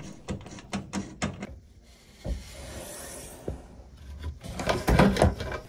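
Flat-blade screwdriver tightening a worm-gear hose clamp on a foil dryer vent duct: a quick run of small metallic clicks. Then a louder knock and scrape of handling near the end.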